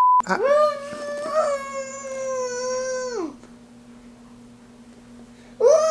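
A toddler wailing: one long, high cry of about three seconds that drops in pitch as it ends, then a second cry starting near the end. A steady low hum runs underneath, and a test-tone beep cuts off right at the start.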